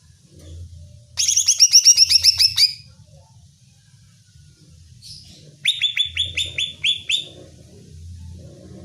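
Greater green leafbird (cucak ijo) singing: two bursts of fast, repeated, high, downward-sweeping notes, each lasting about a second and a half, a few seconds apart.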